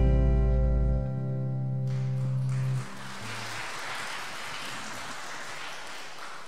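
A worship band's final chord on guitars ringing out and fading: the lowest notes stop about a second in and the rest dies away by about three seconds in. Then the congregation applauds.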